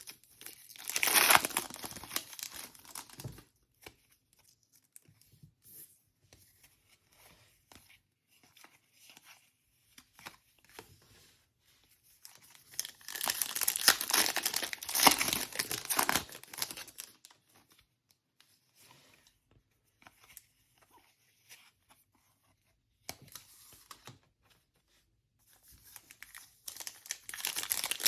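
Plastic-foil trading card pack wrappers being torn open and crinkled in several bursts with quiet gaps between them: one near the start, a longer one in the middle, and shorter ones near the end.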